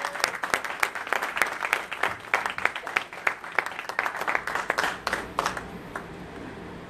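Congregation applauding, with a few sharp individual claps standing out from the rest; the applause dies away about five and a half seconds in, leaving low room noise.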